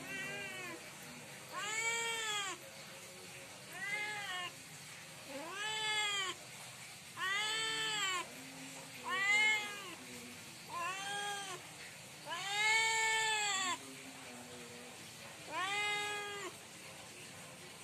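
Tabby-and-white cat meowing loudly over and over, about nine meows a couple of seconds apart, each rising then falling in pitch, one of them longer near the end. The cat is asking for food.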